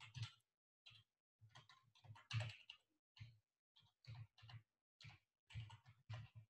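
Faint typing on a computer keyboard: irregular keystrokes in short clusters.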